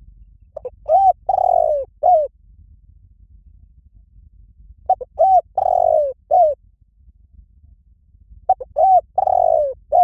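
Spotted dove cooing in the call style Thai keepers name 'liw tan'. The same phrase comes three times, a few seconds apart. Each phrase is a few short arched coos with one longer drawn-out coo in the middle.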